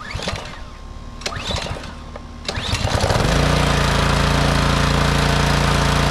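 Troy-Bilt pressure washer's small gas engine being pull-started on a little choke after a carburetor cleaning: a few rattling pulls, then it catches a little under three seconds in and runs steadily.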